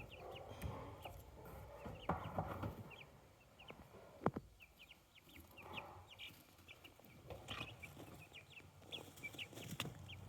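Young Marans chicks and guinea keets peeping: many short, high peeps scattered throughout, with a sharp click about four seconds in and a few brief rustles.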